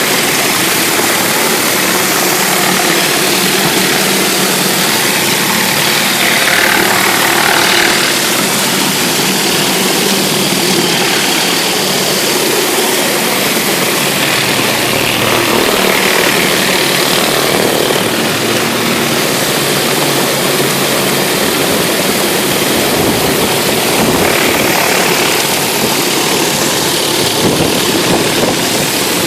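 Pressure washer running steadily: its engine drone under the loud hiss of a high-pressure cold-water jet blasting grease and dirt off concrete.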